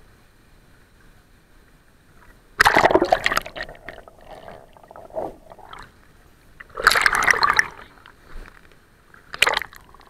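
Water splashing and sloshing close up in three loud bursts: about three seconds in, about seven seconds in, and a shorter one near the end, with quiet water between.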